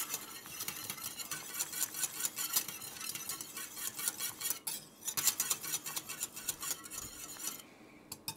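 Wire whisk beating boiling chicken stock in a stainless steel saucepan, its wires clicking rapidly against the pan. There is a short break about halfway, and it stops shortly before the end. The whisking works beurre manié (butter and flour paste) into the stock to thicken it into a gravy.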